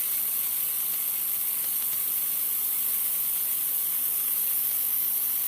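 Handheld laser welder firing: a steady high hiss with a faint low hum underneath.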